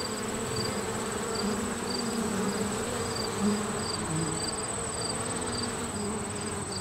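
Honeybees buzzing as they fly among flower heads, a wavering hum that swells and fades. Behind it runs a steady high-pitched trill with short chirps repeating about twice a second.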